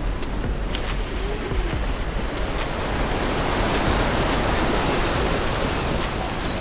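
Steady rush of churning, foaming inlet water around concrete pier pilings, mixed with wind on the microphone; it swells a little in the middle.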